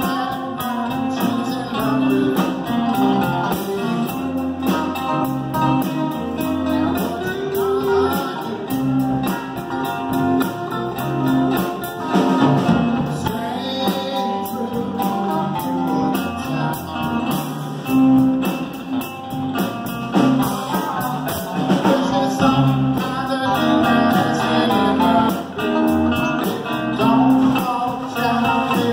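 Live band playing amplified electric and acoustic guitars over steady bass notes.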